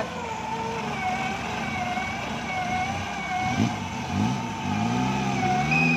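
A Suzuki Jimny's engine revving under load while it drives through deep mud, with a high wavering whine running over it. In the second half the engine revs climb in a few rising surges.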